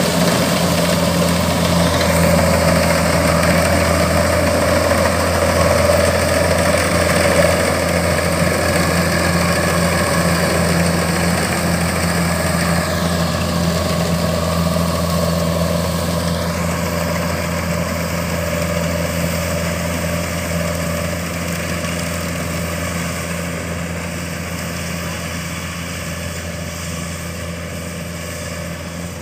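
Kubota DC-105X rice combine harvester running as it cuts and threshes rice: a steady diesel engine drone with machinery hum at an unchanging pitch, growing gradually fainter over the second half as the machine moves away.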